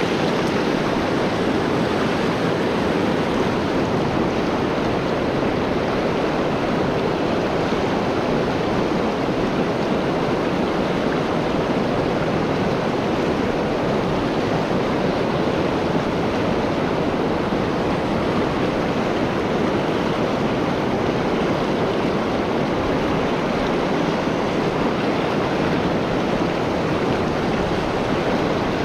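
Fast, shallow river riffle rushing steadily over stones, heard loud and close with the microphone just above the broken water.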